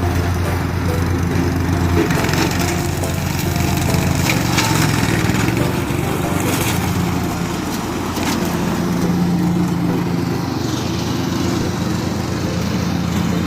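An engine running steadily, with a run of sharp cracking and snapping sounds about two to seven seconds in.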